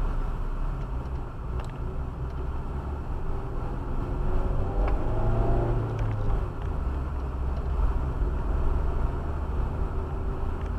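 A car's engine and tyre road noise heard from inside the cabin while driving slowly, a steady low rumble.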